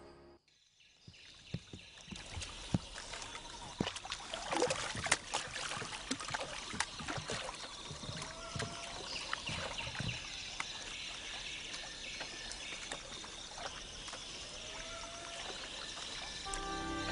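Water splashing and sloshing in irregular strokes, with a short rising squeak heard twice.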